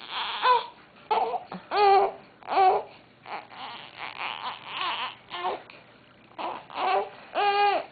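Baby under two months old making a string of short, high-pitched cooing and fussing sounds, about a dozen brief calls with a few breathy ones in between.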